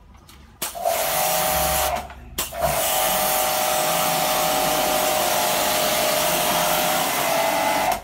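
Electric pressure washer running while its trigger gun sprays water into a wall-mounted split air conditioner's indoor unit: a steady motor whine under the hiss of the jet. It starts about half a second in, cuts out briefly around two seconds in, then runs again until just before the end.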